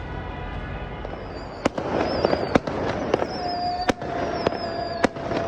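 New Year fireworks going off: sharp cracks and bangs begin about a second and a half in, roughly one a second, mixed with whistling rockets, one of them a steady whistle held for about two seconds.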